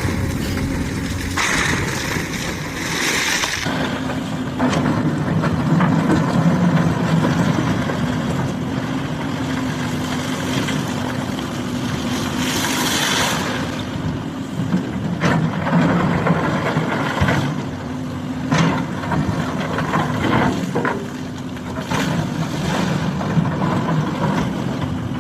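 Hydraulic excavator's diesel engine running steadily while it digs, with occasional sharp knocks and clanks. There are two brief spells of hissing, one near the start and one about halfway through.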